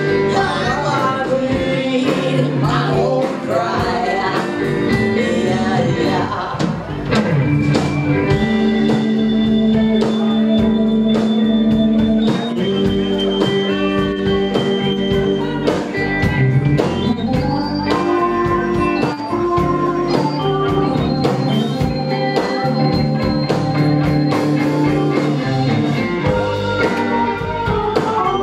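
Live rock band playing: singing over electric guitar, bass and drums, then long held organ chords from a Nord keyboard come to the fore.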